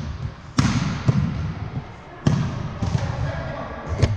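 A volleyball being hit three times during a rally, each contact a sharp smack that echoes in the gym, with voices murmuring in the background.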